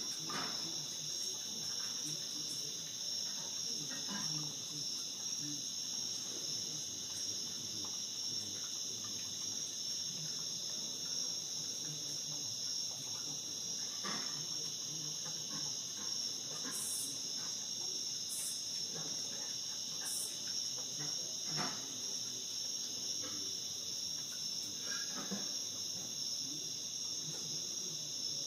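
Continuous high-pitched chorus of night-singing insects, steady throughout, with a few faint clicks now and then.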